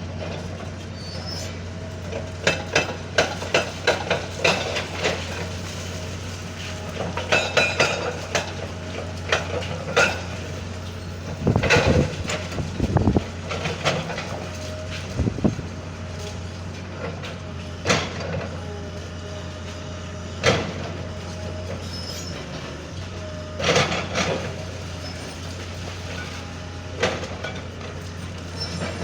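Backhoe engine running steadily while the building is torn down, with repeated sharp clanks and crashes of breaking debris. The clanks come thick and fast in the first dozen seconds, then thin out to single knocks every few seconds.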